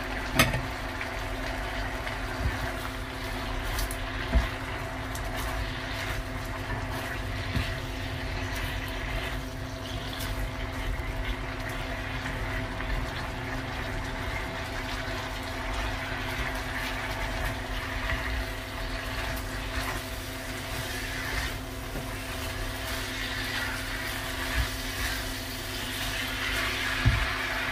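Stir-frying: a silicone spatula stirring tempe and potato crisps in a nonstick wok over a steady hum and hiss, with a few sharp knocks of the spatula against the pan.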